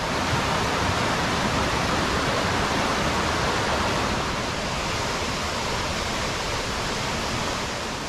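Mountain stream rushing over boulders and small cascades in a rocky gorge: a steady, even rush of water.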